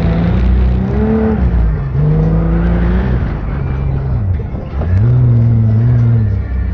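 Sand rail's engine revving under throttle, its pitch rising and falling several times. The revs drop away briefly a little past the middle, then climb again.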